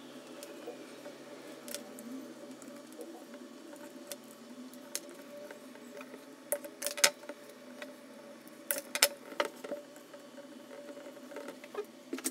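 Small parts being handled during an assembly: scattered sharp clicks and light knocks, bunched about halfway through and again a little later, over a steady low hum.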